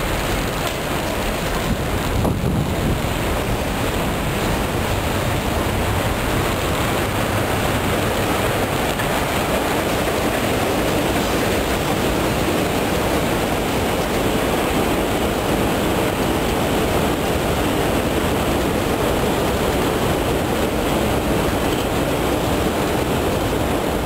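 Steady, even rushing ambience of a large Underground station hall, with the escalator being ridden down running beneath it.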